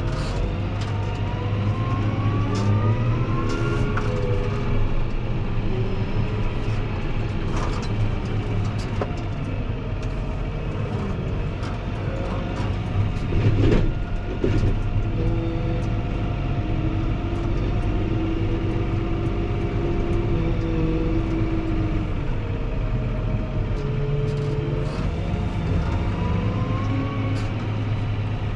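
Fendt 724 Vario tractor's six-cylinder diesel running steadily, heard from the cab. Its whine rises in pitch as the tractor speeds up, about a second in and again near the end. There is a short clatter around the middle.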